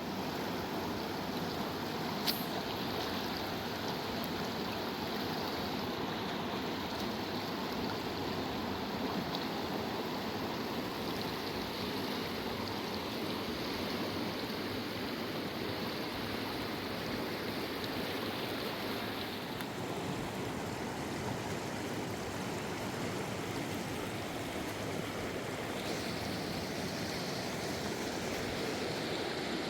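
Fast-flowing river water rushing steadily, with one short sharp click about two seconds in.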